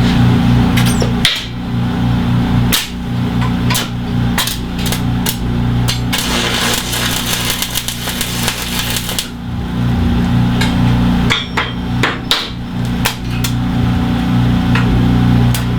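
Hammer blows on steel bar, struck irregularly in ones and short runs as the parts of a forged steel bench leg are knocked into position, over a steady low hum. A few seconds of hiss come in around the middle.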